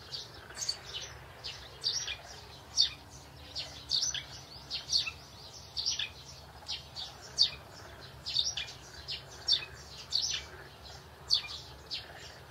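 Small birds chirping: short, high chirps repeating several times a second.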